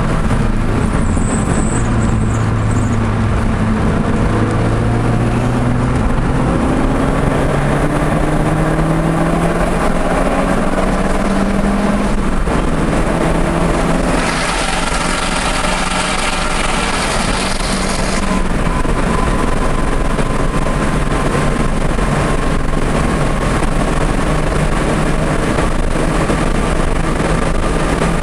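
Audi TT's engine at speed on track, heard onboard: the revs climb, drop once at a gear change about halfway through, then climb slowly again, over heavy road and tyre noise. A louder hiss comes up for a few seconds just past the middle.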